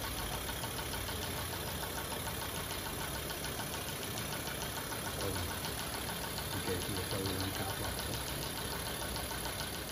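Brush cleaner's compressed-air motor running steadily, turning the brush shaft, with a dense hiss and a fast, fine rattle.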